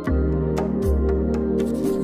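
Ambient background music: sustained chords over a deep bass note that is struck again about once a second, each time with a short downward slide, with light percussive taps on top.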